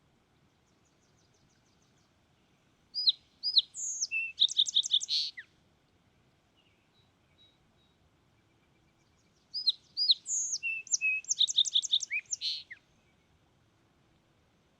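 Fox sparrow singing: two songs of clear, slurred whistles running into a quick series of rich notes, each song about two and a half seconds long, the second starting about six seconds after the first.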